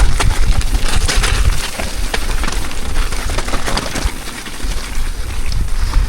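Mountain bike riding fast down a loose, rocky trail: tyres crunch over gravel and stones, with a stream of sharp clicks and rattles from the bike. A heavy low rumble of wind buffets the microphone throughout.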